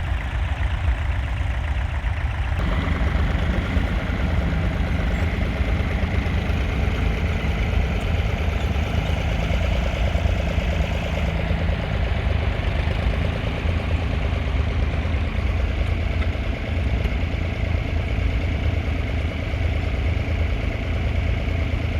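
The three-cylinder 2.7-litre diesel engine of a 1969 David Brown 780 tractor running steadily, with a deep, even throb; its sound grows fuller about two and a half seconds in.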